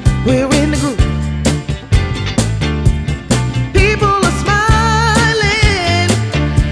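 Background music: a pop/soul song with a steady drum beat and bass, with a singing voice coming in a few seconds in.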